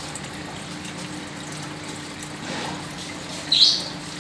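Aquarium water trickling steadily, with a low steady hum underneath. A short, high-pitched squeak cuts in about three and a half seconds in.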